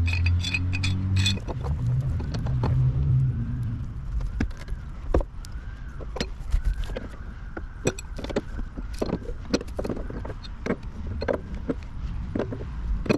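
Pipe wrench and metal pipe fittings clinking and knocking as an exhaust adapter is threaded into a lawn mower's exhaust port, in a run of irregular short clicks.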